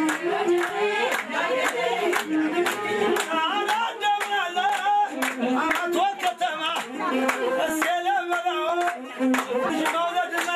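A group of people clapping their hands together in a steady, even rhythm to singing.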